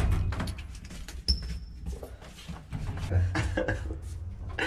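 A single short, high electronic beep from a lift's access keypad about a second in, among small clicks and phone-handling noise over a low steady hum.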